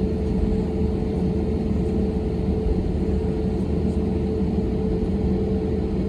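Airliner cabin noise just before takeoff: the jet engines run steadily, giving an even rumble with a constant hum, neither rising nor falling.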